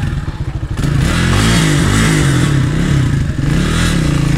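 Motorcycle engine, loud. It pulses unevenly for about the first second, then is revved up and down over and over in quick throttle blips.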